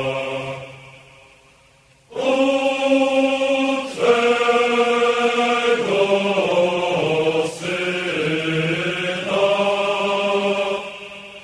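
Slow vocal chant of long held notes, in phrases that swell and fade. One phrase fades out in the first couple of seconds, the chant picks up again about two seconds in, and it fades once more near the end.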